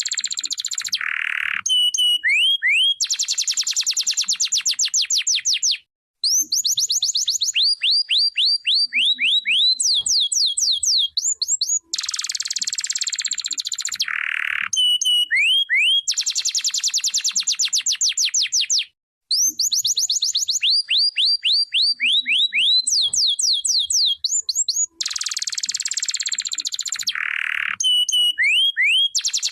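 Domestic canary singing: fast trills and quick runs of rising and falling whistled notes, the same sequence of phrases coming round about every 13 seconds.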